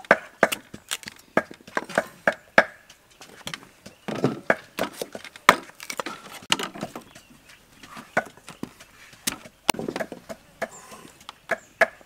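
Cleaver chopping chunks of white root vegetable on a thick round wooden chopping block: irregular sharp knocks, two or three a second.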